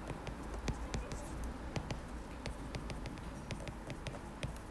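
Stylus tip tapping and ticking on a tablet's glass screen while handwriting, an irregular run of light clicks.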